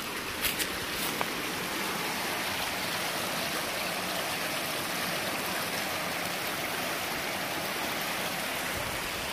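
Small fast-flowing creek rushing over rocks through a narrow stone channel: a steady, even rush of water.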